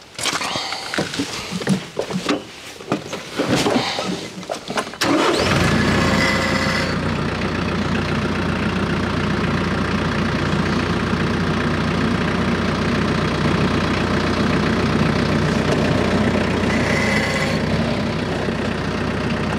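Footsteps and knocks on gravel. About five seconds in, a TYM compact tractor's diesel engine starts and runs steadily.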